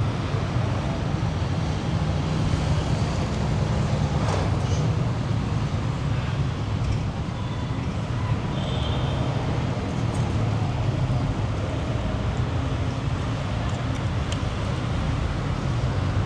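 Steady city street traffic noise: a continuous low rumble of passing motor vehicles.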